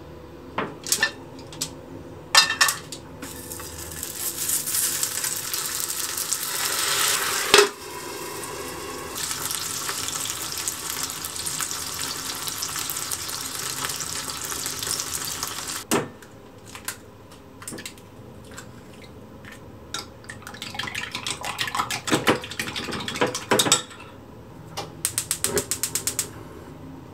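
Rice paper dumplings frying in oil in a nonstick pan: sizzling for most of the first sixteen seconds, briefly interrupted once. After it, scattered clicks and knocks of utensils against the pan, and a quick run of even clicks near the end.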